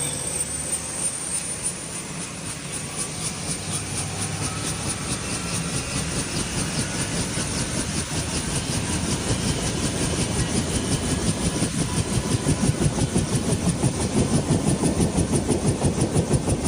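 A mechanical rhythmic clatter that grows louder, settling into an even beat of about three to four pulses a second in the second half.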